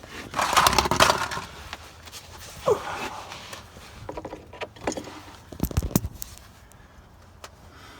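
Tools being handled: a burst of scraping and rustling, then scattered clinks and knocks of metal, with a short squeak near the middle.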